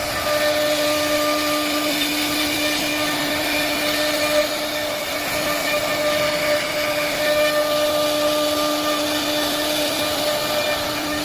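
CNC router spindle running steadily, a constant whine over a rushing noise, as it carves a 3D design into wood.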